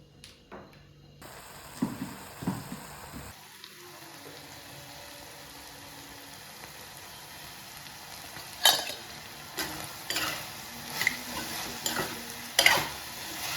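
Meat frying in a pan, a steady sizzle. From about nine seconds in, a spatula repeatedly scrapes and knocks against the pan as the meat is stirred.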